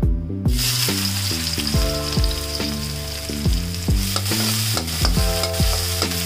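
Chopped onion and green chillies frying in hot oil in a frying pan: a steady sizzle starts about half a second in, with the scrape of a metal utensil stirring them. Background music with a steady beat plays underneath.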